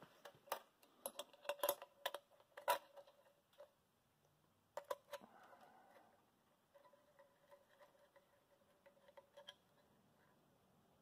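Quiet scattered clicks and light metallic taps of hands working a brass hose fitting and an oil pressure gauge with its coiled plastic line, thickest in the first three seconds, a couple more about five seconds in, then fainter.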